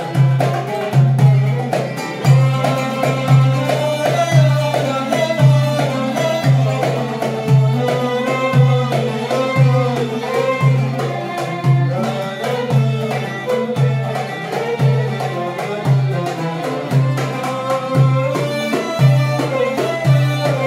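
Live Arabic traditional ensemble music: oud, violin and goblet drum (darbuka) accompanying a man singing into a microphone. A steady drum beat of about two strokes a second runs under the winding melody.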